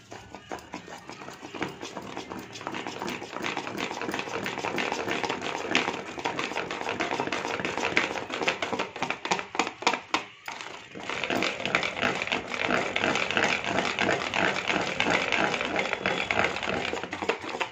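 Wire whisk beating thick semolina cake batter in a stainless-steel bowl: fast clicking and scraping of the tines against the bowl, with a brief pause about ten seconds in.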